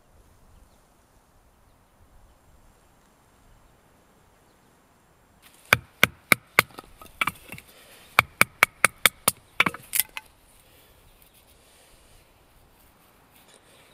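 A bushcraft knife being batoned down through a small stick of split firewood to make kindling: about a dozen sharp wooden knocks with a short metallic ring, in quick runs from about six to ten seconds in.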